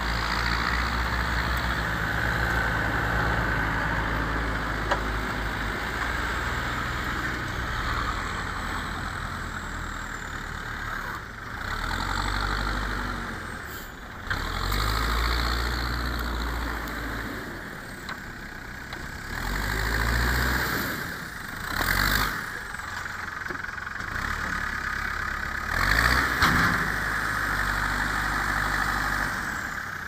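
Terex backhoe loader's diesel engine running, revving up in surges several times as the machine moves and turns.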